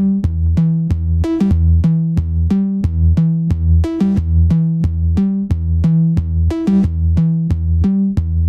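Electronic backing music built from GarageBand loops: a steady drum-machine beat under a pulsing synthesizer bass line and synth layers.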